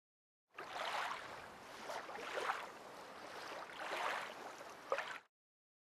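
Intro sound effect for a logo animation: a rushing noise that swells and fades about three times, with a sharp hit near the end, then cuts off suddenly.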